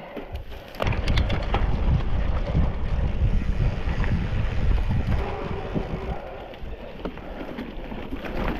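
Wind rumbling on the camera microphone of a riding mountain biker, starting about a second in, with scattered knocks and rattles from the bike over rough trail.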